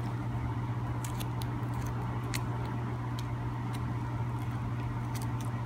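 Faint small clicks and ticks of a knife cutting the thin membrane between a wolf foot's hide and flesh, over a steady low hum.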